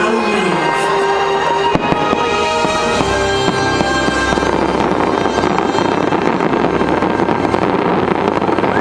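Fireworks bursting with sharp bangs and crackling over the show's music, which holds steady notes through them.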